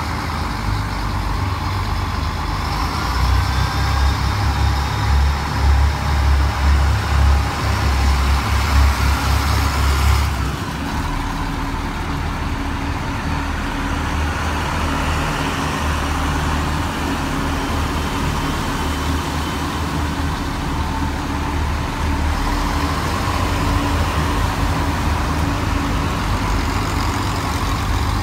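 A train's diesel engine running with a steady low rumble. It is louder for about the first ten seconds, then eases to an even level.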